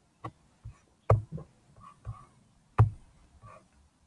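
Irregular clicks and knocks of a Chromebook being operated, about seven in four seconds, the loudest about a second in and near three seconds in.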